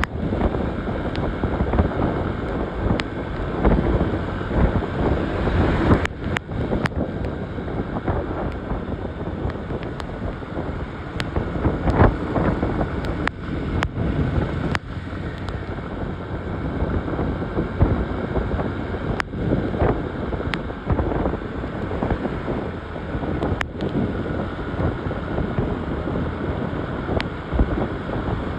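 Wind buffeting the phone's microphone on a moving motorcycle, over steady engine and road noise, with occasional sharp clicks.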